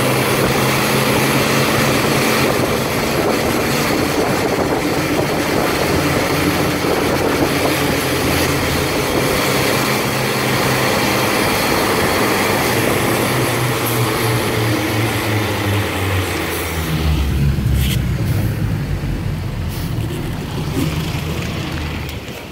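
Freightliner M2 rear-loader garbage truck driving, heard from its rear step: a steady diesel engine note under loud road and wind hiss from tyres on wet pavement. About three quarters of the way through, the engine note drops into a deeper rumble and the hiss fades as the truck slows to a stop.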